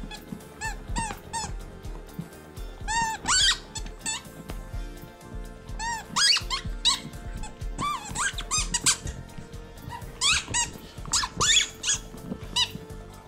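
A squeaky rubber chicken toy being chewed by a husky, giving off runs of high, wavering squeaks with short pauses between the bites.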